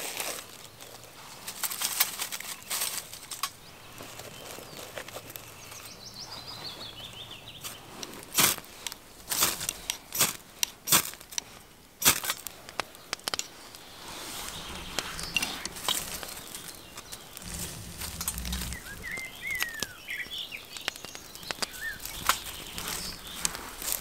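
A fire steel struck over birch-bark tinder and shavings in a folding metal twig stove: a run of about five sharp, loud scraping strikes a little past the middle. Later come small crackles as the kindling catches, while songbirds chirp now and then.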